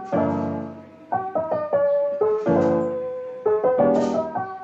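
Background piano music: struck notes and chords, a new one every half second or so.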